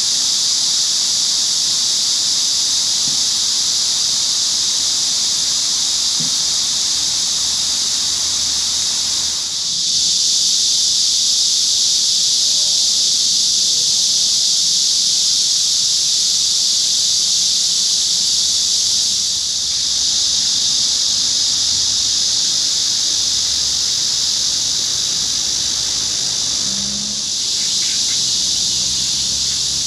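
A dense chorus of cicadas singing, a loud unbroken high-pitched buzz that eases off briefly three times.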